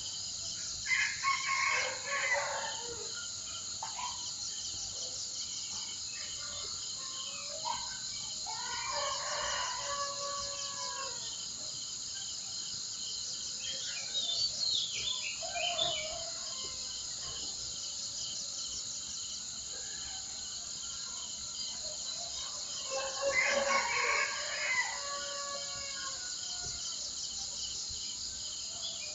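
Roosters crowing three times over a steady high drone of insects, with small birds chirping in between.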